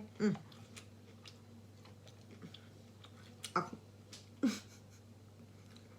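A person chewing a mouthful of soft fried dumpling, with faint wet clicks of eating and two short hums of the voice midway through.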